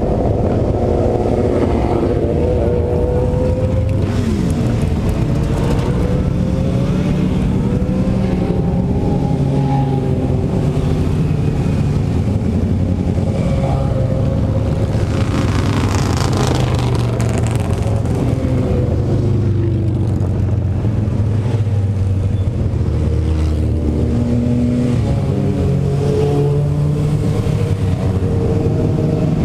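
A procession of motorcycles riding past one after another, many engines running at once with their notes rising and falling. One cruiser motorcycle passes close about halfway through, the loudest moment.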